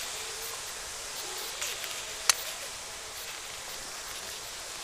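A steady hiss with one sharp click about two seconds in.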